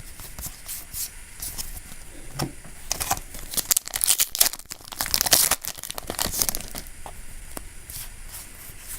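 Yu-Gi-Oh! trading cards and a foil booster-pack wrapper being handled: crinkling, rustling and small clicks, busiest in the middle.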